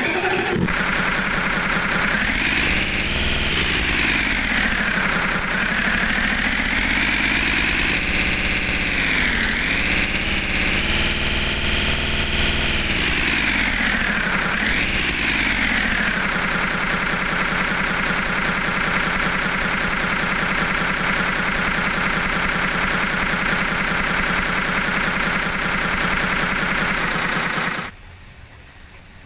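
Hino bus diesel engine sound effect: the engine starts, is revved up and down about four times, then settles into a steady idle before cutting off suddenly near the end.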